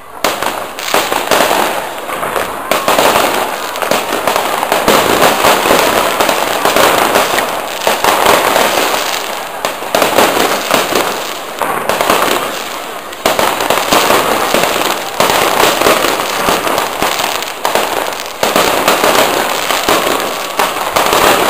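Fireworks display: a dense, continuous barrage of bangs and crackling that starts suddenly at the outset, with brief lulls about 13 and 18 seconds in.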